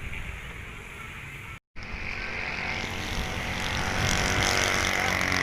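A motor vehicle's engine running and growing steadily louder, as if coming closer. It follows a brief total cut in the sound about a second and a half in.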